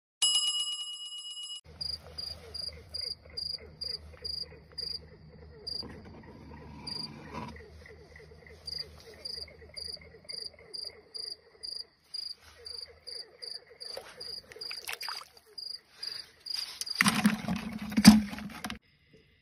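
A short electronic chime, then a night-time chorus of calling insects and frogs: a high chirp repeating about twice a second over a lower, faster pulsing trill. Near the end a loud burst of rough rustling noise cuts in over it, the loudest sound here.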